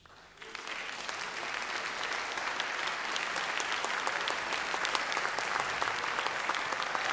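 Audience applauding, breaking out about half a second in and quickly building to steady clapping.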